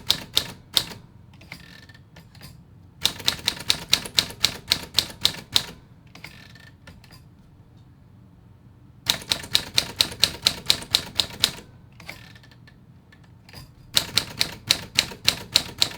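Keys of a 1940s Smith Corona Silent manual portable typewriter struck in quick runs, about four or five keystrokes a second, each run about a dozen strikes long. Short pauses between the runs hold only faint clicks.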